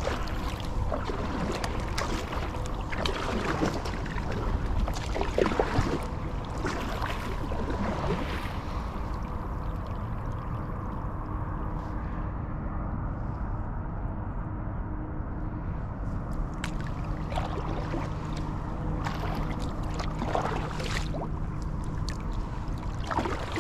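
Kayak paddle strokes: water splashing and dripping off the paddle blades in spells, in the first several seconds and again later on, over a steady low rumble of wind on the microphone.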